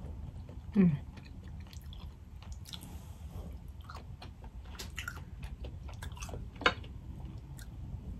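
Boiled crawfish being eaten close to the microphone: shells cracked and peeled by hand, with chewing and biting. There is a brief falling 'mm' of the voice about a second in, and a sharp crack of shell late on.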